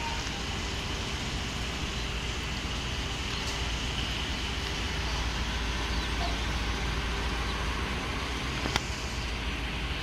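Steady outdoor background noise: a low rumble with an even hiss, with one sharp click near the end.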